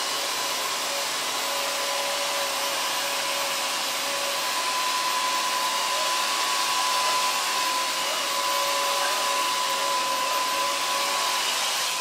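Purest cordless wet-mop vacuum cleaner running as its roller brush cleans a tile floor: a steady rush of suction with a steady motor whine over it, unchanging throughout.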